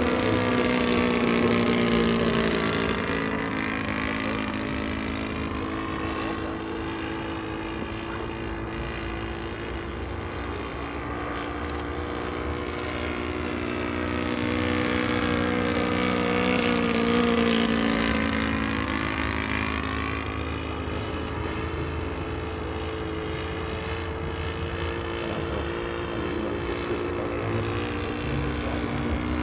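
Engine and propeller of a 1:5 scale SAI KZ II radio-controlled model airplane running steadily in flight. It grows louder as the plane passes, about two seconds in and again around seventeen seconds, and its pitch slides up and down with each pass.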